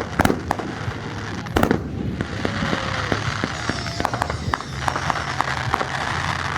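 Fireworks display: a rapid series of sharp bangs as shells burst, one loud one about one and a half seconds in, then a dense crackling that goes on from about two seconds in.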